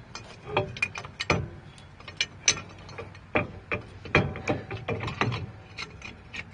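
Irregular metallic clicks and clanks, some with a short ring, as a rear axle shaft and its bearing retainer plate are handled and worked into the axle housing.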